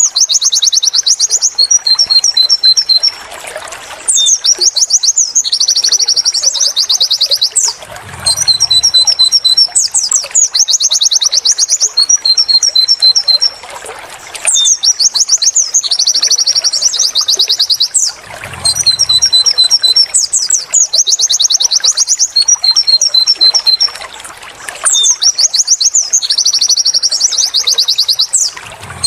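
White-eye (pleci) singing its 'wit wit tulit tulit' song: high-pitched chirps, fast trills and rising whistles, the same phrase repeated about every five seconds.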